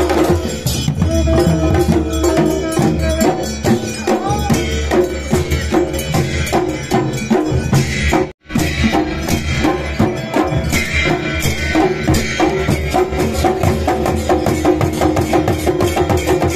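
Uttarakhand folk dhol and damau drums beating a fast, steady rhythm, with a brass hand bell and a steady ringing tone over the drumming. The sound cuts out for a moment about eight seconds in.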